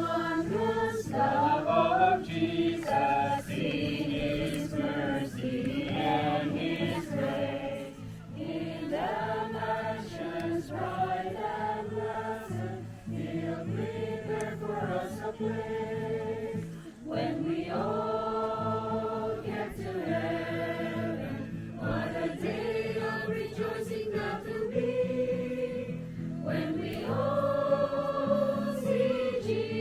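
A group of people singing a hymn together, holding long notes.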